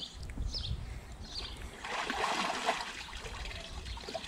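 Water sloshing and trickling in a dunk tank as a person moves through it and climbs up out of it, loudest about two seconds in.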